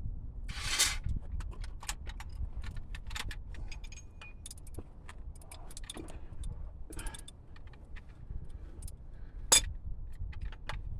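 Metal hand tools clinking and scraping in irregular small clicks as someone works under a car, with one sharper metallic knock about nine and a half seconds in, over a steady low rumble.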